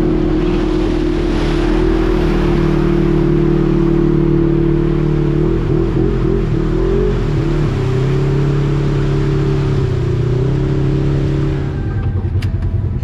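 Off-road vehicle engine held at high revs under load, with its pitch wavering for a couple of seconds midway and then settling lower, over a hiss of mud and water.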